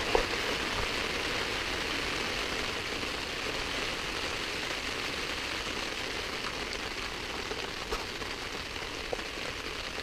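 Steady rain falling on a tent's flysheet, heard from inside the tent, with a few louder single drops standing out now and then.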